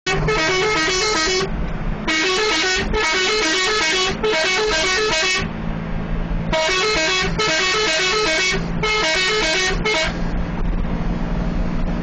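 Multi-tone 'telolet' bus horn playing its quick, warbling tune in a string of blasts, each about a second long, with a short break around the middle. A steady engine hum runs underneath.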